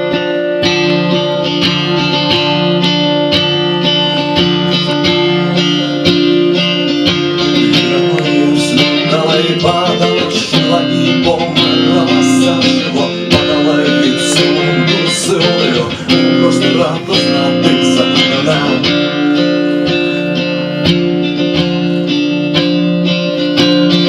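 Live band playing an instrumental guitar-led intro with a steady beat.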